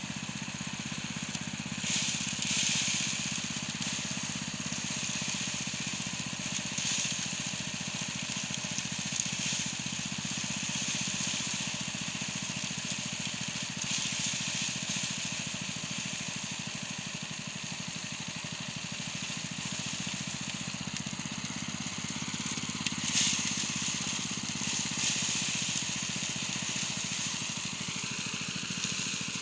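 A small engine-driven machine running steadily, with short bursts of hissing, rustling noise every few seconds.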